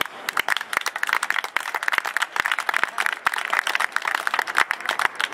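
An audience applauding, with many hands clapping in a dense, irregular patter.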